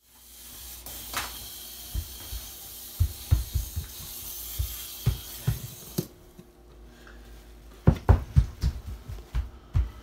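Irregular low thumps and knocks, like a toddler's bare feet stomping on a wooden floor. A steady hiss sits underneath for the first six seconds and cuts off suddenly.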